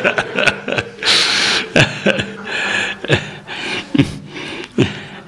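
A man laughing close to a microphone: a long breathy exhale about a second in, then several short, separate laughs.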